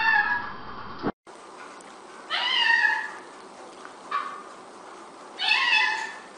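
Cat meowing: a meow right at the start, then two longer meows a few seconds apart with a short one between them, each rising in pitch and then holding.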